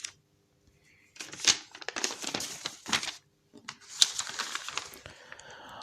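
Three short bursts of rapid, irregular clicking and crackling over a faint steady hum.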